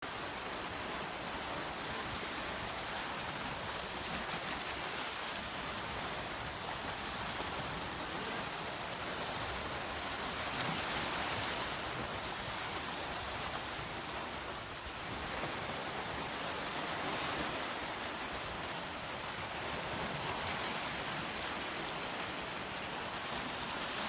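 Small sea waves washing over a rocky shore: a steady hiss of surf that swells a little every few seconds.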